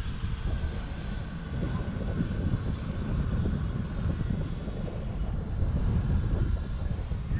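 E-flite Habu 70mm electric ducted-fan RC jet in flight, its fan a faint steady whine, under a heavy rumble of wind buffeting the microphone.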